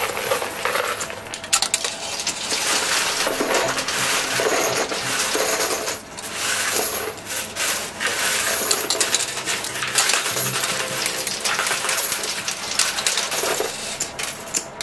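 Quarters dropping into a coin pusher machine, with continual metallic clinking and clattering as coins land on and knock against the coins piled on its shelves.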